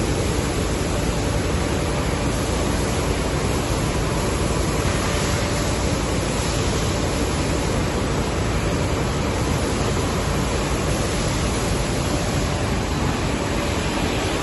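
Tetra Pak carton packaging line running at speed: conveyors and machinery making a steady, even noise with a faint hum.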